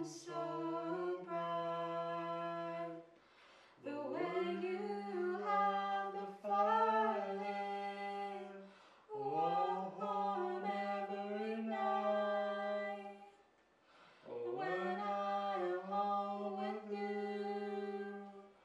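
A man and a woman singing together unaccompanied into one microphone, in four long held phrases with short breaks between them.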